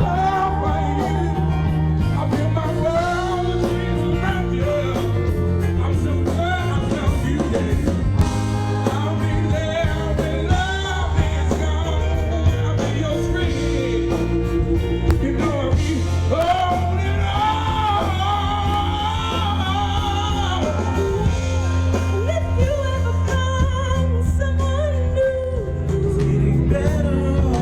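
Band music with a lead singer: a steady bass line under a wavering sung melody.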